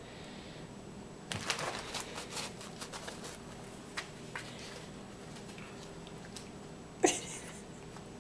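Tissue paper and newspaper rustling and tearing in short crackly bursts as a cat bites and pulls at it, with a single sharper, louder sound near the end.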